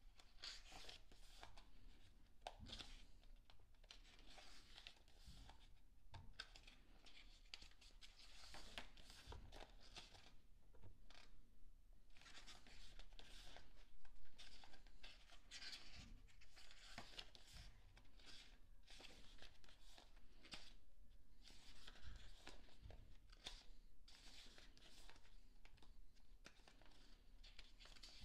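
Faint rustling and soft flicks of paper as the pages of an album photo book are turned by hand, in irregular strokes with a slightly louder one about halfway through.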